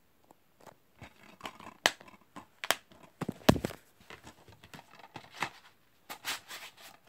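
Plastic DVD case and disc being handled and the case closed: an irregular run of clicks, taps and rustling, with the loudest click about three and a half seconds in.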